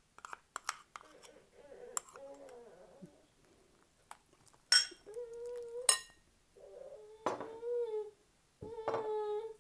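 A metal spoon clinking and scraping against a glass mixing bowl while stirring a batter, the two loudest clinks about five and six seconds in. From about five seconds in, a baby makes about three drawn-out squealing coos, each about a second long.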